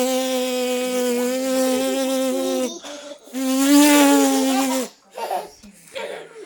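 A person's voice imitating a bee's buzz: two long, steady buzzes, the second starting about three seconds in.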